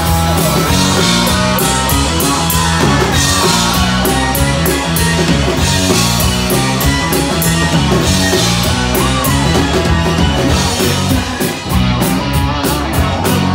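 Live rock band playing loudly: drum kit with cymbal hits, electric guitar and electric bass.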